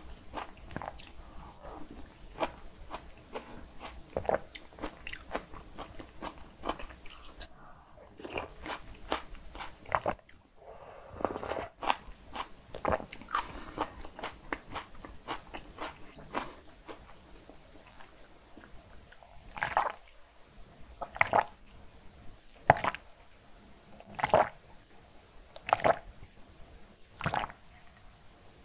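Close-miked eating: chewing and biting a mouthful of bibimbap and kimchi soft tofu stew. In the last third come six evenly spaced gulps about a second and a half apart as she drinks water from a glass.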